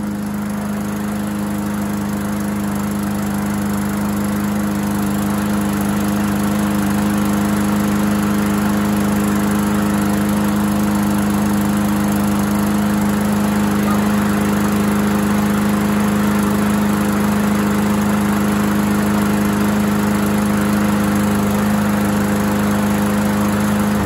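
Briggs & Stratton E-Series single-cylinder lawn mower engine running steadily at a constant speed with its totally clogged air filter fitted. It keeps running despite the choked filter.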